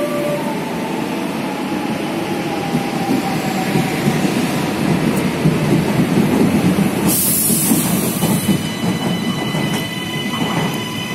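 FGC series 112 and 113 electric multiple units running through the station, with steady wheel-on-rail rumble and an electric motor whine that falls slightly in pitch early on. A brief hiss comes about seven seconds in. Near the end, the second train's higher, steady whine joins.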